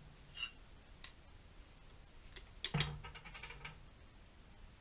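Faint metallic clicks of a steel bolt and washer set down on a wooden workbench. About three seconds in there is a knock, followed by a quick run of rattling ticks as the washer settles on the bench.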